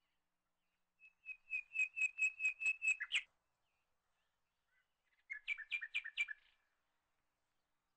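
A bird chirping in two runs of quick, repeated whistled notes, about four or five a second. The first run has about ten notes and ends in a quick downward slur; a shorter run of about six notes follows a couple of seconds later.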